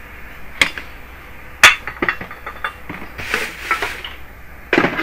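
Hard objects knocking and clattering as someone rummages through workshop gear: a few sharp separate knocks, the loudest about one and a half seconds in, and a short rustling burst near the end.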